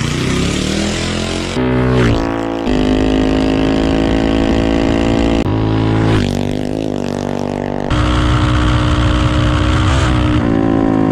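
Small minibike engines revving and running hard across several short clips that cut abruptly from one to the next. The pitch climbs in the first second and a half as the bike accelerates, then holds mostly steady within each later clip.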